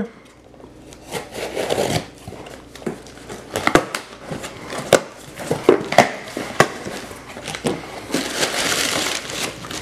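A knife slitting the packing tape on a cardboard box, then the box flaps being pulled open with scraping and sharp cardboard knocks. Near the end, crumpled brown packing paper rustles inside the box.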